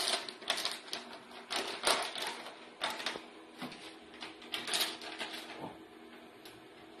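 Packing machine running: a steady hum with irregular clicking and clattering that stops about five and a half seconds in.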